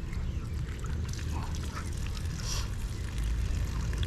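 Chickens clucking and chirping faintly now and then over a steady low rumble.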